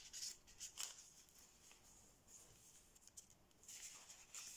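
Faint rustling and crinkling of thin kami origami paper being worked by hand as an inside reverse fold is pushed in, with a few soft crackles in the first second and a longer rustle near the end.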